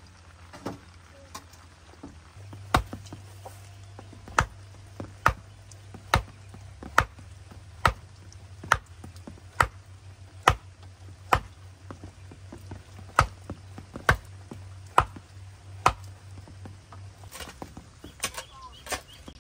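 A run of hard, evenly spaced chopping strokes, roughly one a second, with a brief pause about two thirds of the way through and a few lighter strikes before and after.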